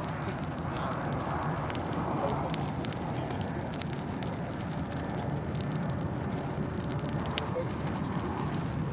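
Campfire of wood and burning sneakers, with flames and frequent small crackles and pops over a steady rushing noise.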